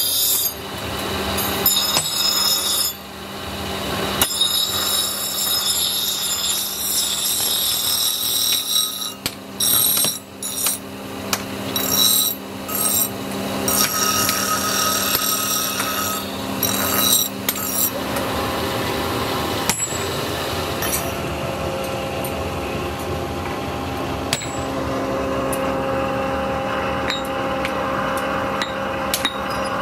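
Electric-motor-driven abrasive grinding wheel grinding a steel axe head, a steady whine and scraping that breaks off and returns many times as the steel is pressed to the wheel and lifted away. About two-thirds of the way through it gives way to a steadier, unbroken hum.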